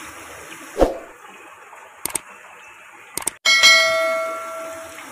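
A bell chime sound effect rings out about three and a half seconds in and fades over about a second and a half, after a couple of short clicks. Under it is the steady sizzle of tofu-tapioca fritters deep-frying in hot oil in a wok, with a dull knock about a second in.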